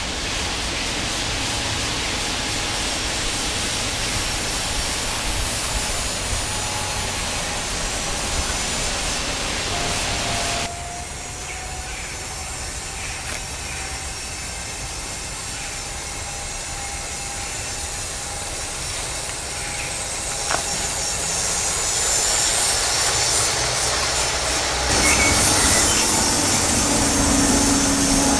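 Gauge 0 model train, a Metropolitan LMS Jubilee locomotive about 30 years old hauling 2-rail MTH coaches, running on track: the motor's steady hum and the rumble of wheels on rail. The sound drops suddenly about ten seconds in, then grows louder as the train comes close near the end.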